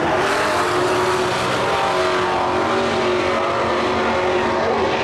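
Dirt-track race trucks' engines running at racing speed around the oval, a loud steady drone that rises and falls slightly in pitch as they go through the turns.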